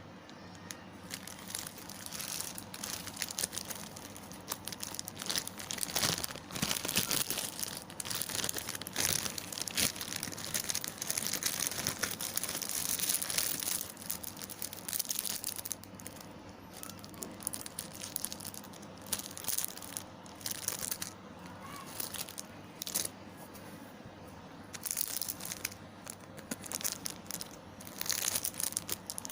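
Plastic packaging crinkling and tearing in irregular flurries as packets are handled and opened, with a couple of quieter pauses.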